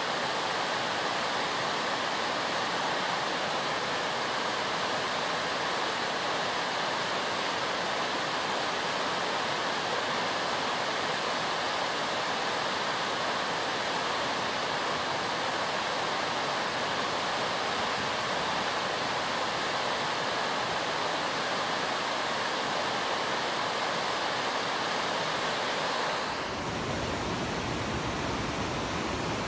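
Steady rush of the James River's rapids in flood, brown whitewater pouring over and around drowned rocks and trees. About 26 seconds in the sound shifts to a deeper rumble with less hiss.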